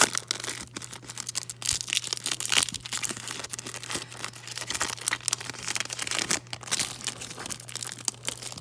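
Foil wrapper of a trading-card pack being pulled and torn open by hand, with irregular crinkling and tearing; the wrapper is stubborn and hard to open.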